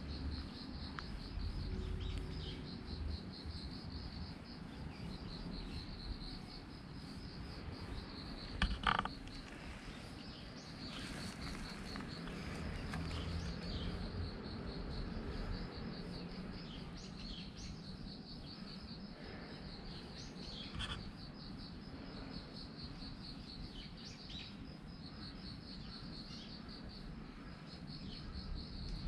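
Insects chirping in a steady, pulsing high trill that runs on without a break. A single short knock comes just before nine seconds in.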